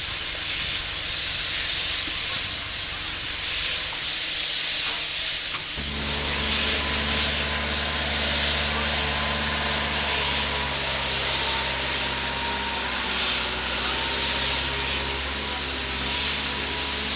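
Paddle steamer's steam engine hissing loudly in a regular pulsing rhythm. About six seconds in, a steady low machinery hum starts suddenly beneath the hiss.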